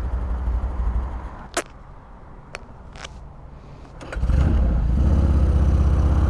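Harley-Davidson Sportster V-twin engine running, falling away near the start to a quiet stretch with a few sharp clicks, then running loudly again from a little past four seconds in.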